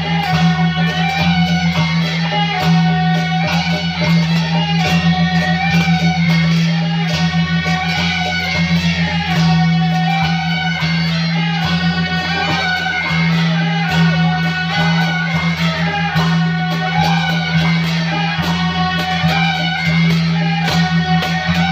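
Instrumental music: a busy melody line over a steady, unbroken low drone, with a plucked-string sound.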